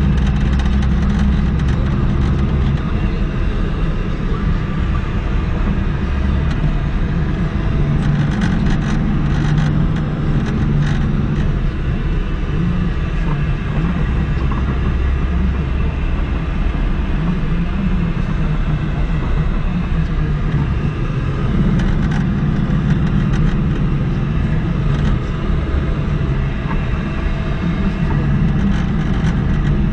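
A car's engine and tyre noise heard from inside the cabin while driving, a steady low drone whose engine note swells and eases several times as the car takes bends and climbs.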